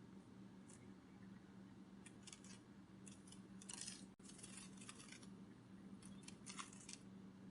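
Butterfly wing-flutter sound effect: faint bursts of quick, dry fluttering strokes, coming in several short clusters, over a low steady hum.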